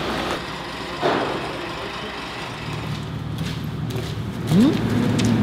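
A motor vehicle engine running, its low hum growing louder through the second half, with a short rising whine about four and a half seconds in.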